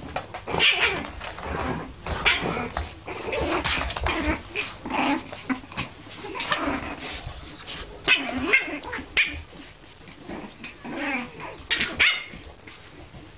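French bulldog puppy yipping, whining and giving small barks in many short irregular bursts, dying away about twelve seconds in.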